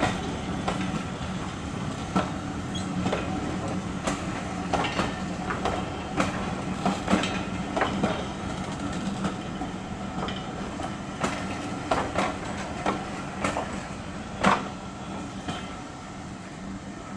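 British Railways Mark 1 passenger coaches rolling slowly past, their wheels clicking and clunking irregularly over rail joints over a steady low hum, with the loudest clunk near the end.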